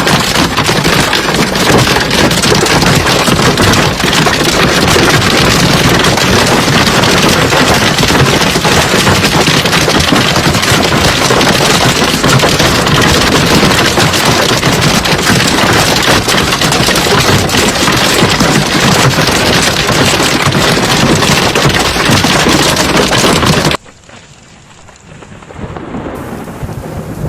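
Hailstorm: hailstones and heavy rain pelting down hard, a loud dense clatter of countless small hits. About 24 seconds in it cuts off abruptly to a much quieter hiss of rain.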